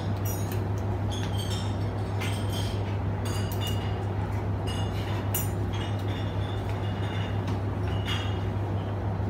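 Steady low hum with scattered light clinks and taps as a small sample vial and a spatula are handled at an analytical balance.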